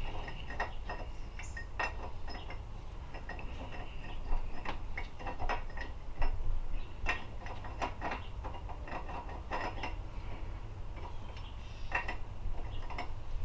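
Steel transmission parts (synchro rings, hub and sleeve) clinking and tapping against each other as they are handled and fitted together, in irregular light clinks each with a short ring.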